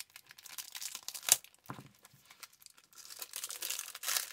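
Thin plastic packaging of a rolled diamond-painting canvas being slit and torn open, crinkling as it is pulled off the canvas. There is one sharp crackle about a second in, and the crinkling grows denser near the end.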